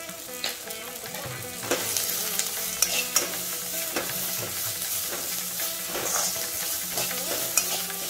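Sliced onions and chillies sizzling in oil in an iron kadai while a perforated steel ladle stirs them, scraping and clinking against the pan several times. The stirring gets louder from about two seconds in.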